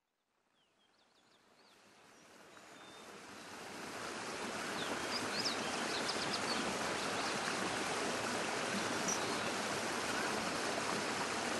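Running water, like a stream, fading in from silence and then holding steady as an even rush, with a few faint high chirps.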